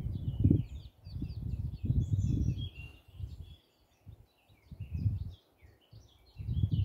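Wind buffeting the microphone in repeated low gusts, over busy high chirping of small birds.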